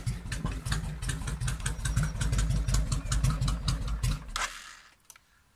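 Suzuki Intruder 1500 LC's V-twin engine idling with an even beat, then switched off with the key about four seconds in, the sound dying away within half a second.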